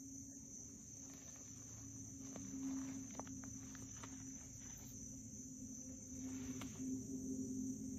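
Steady high-pitched insect chirring, crickets, under a faint low hum, with a few soft ticks scattered through it.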